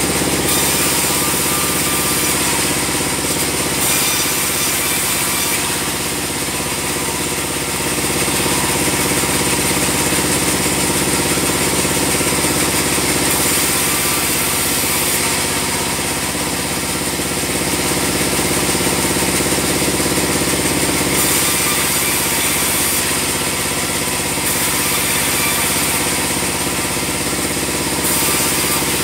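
Band sawmill running with a steady engine drone, a high hiss over it swelling and fading every few seconds.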